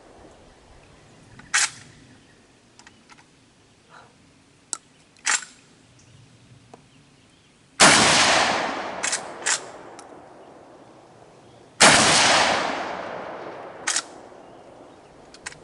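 Two 12-gauge shotgun shots from a lever-action shotgun firing 1-ounce slugs, about four seconds apart, each followed by a long rolling echo. Several short sharp clicks come before and between the shots.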